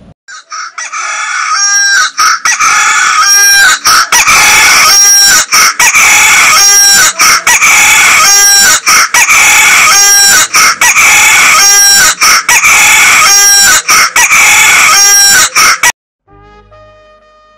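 Phone alarm ringtone of a rooster crowing, played loud and looped: the same crow repeats about every second and a half, then cuts off suddenly near the end as the alarm is switched off.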